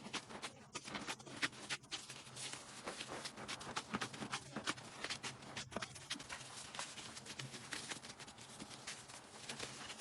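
Irregular small clicks and taps, several a second, from handling candy-making things in a kitchen, over a faint low steady hum.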